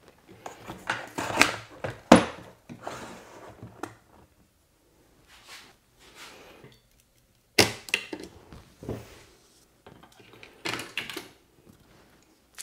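Irregular clicks, knocks and scraping of a small tool and loose parts being handled on a disassembled LCD monitor's metal chassis as cable connectors are unplugged and the power supply board is lifted out. Two sharp knocks stand out, about two seconds in and past the middle.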